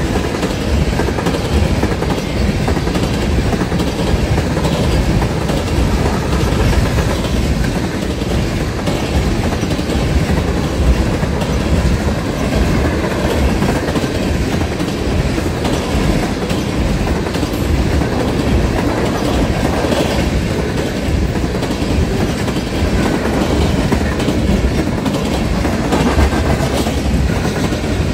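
Freight train cars rolling steadily past at close range: a continuous rumble of steel wheels on the rails with clickety-clack over the rail joints.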